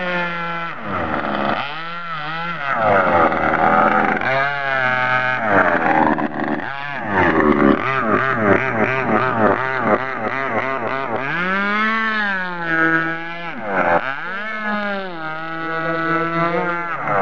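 Magnum 57 RC boat's motor running hard on the water, its pitch rising and falling over and over as the throttle is worked through turns and passes, with brief drops near the start and about three-quarters of the way through.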